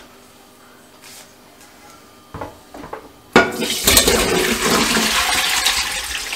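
Sugar syrup and rasmalai sweets poured from a pot into a stainless-steel mesh strainer over another pot, the syrup rushing and splashing through the mesh. A few light clinks of the pot come first; the loud pour starts suddenly about halfway through and lasts about three seconds.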